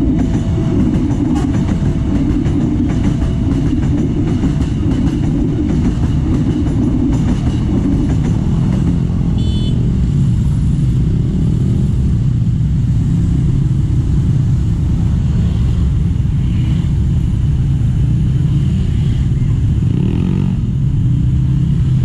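Dense motorcycle and car traffic, engines running and pulling away across a railway level crossing. An electric commuter train is passing at the start, while the crossing signal's tone sounds faintly in the first few seconds. A brief high horn toot comes about ten seconds in.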